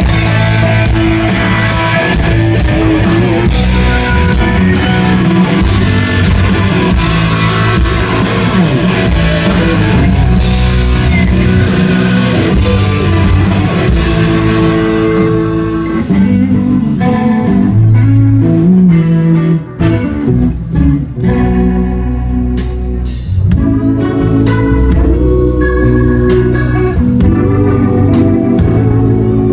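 Live rock band playing an instrumental passage with electric guitars, bass and drum kit. About halfway through, the drums drop back to sparse hits under the guitars and bass, with a brief dip in loudness.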